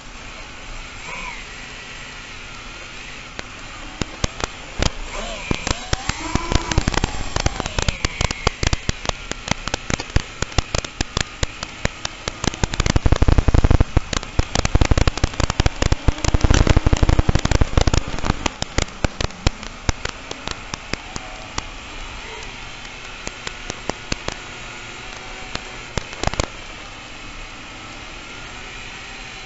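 FPV quadcopter in flight, heard from its onboard camera: motors whining and changing pitch, with dense crackling and heavy buffeting through the middle stretch, settling to a steadier sound near the end.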